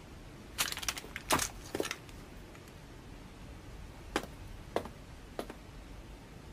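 Plate armour and horse tack clinking for about a second and a half, then three single steps about half a second apart, over a faint hiss.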